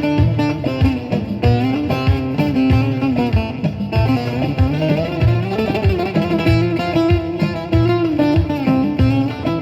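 A bağlama (saz) with a 42.5 cm bowl plays a lively Turkish folk dance tune (oyun havası). A plucked melody runs over a steady low beat of about two strokes a second.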